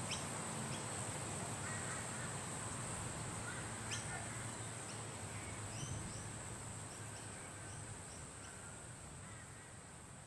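Nature ambience of wind with scattered short bird calls over a steady high insect drone, fading gradually in the second half.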